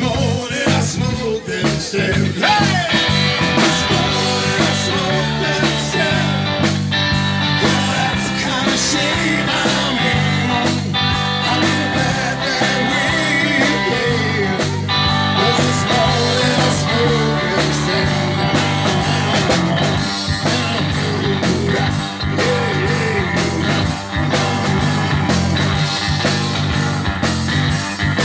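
Live rock band playing with a steady beat: bass guitar, guitar and drums, with voices singing at the microphones.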